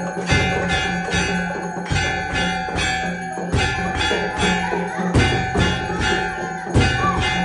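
Hindu temple aarti music: bells ringing continuously, with steady rhythmic percussion strikes about three a second.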